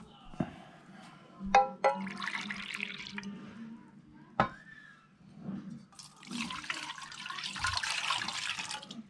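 Water running in two spells, the second longer and louder. A metal clank that rings briefly comes about a second and a half in, and a sharp knock a little past four seconds.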